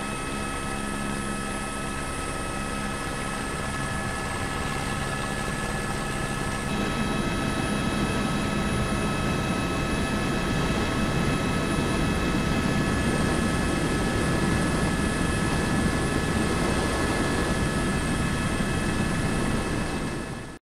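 Helicopter running in flight: a steady turbine whine of several high tones over rotor and engine noise, growing louder about seven seconds in.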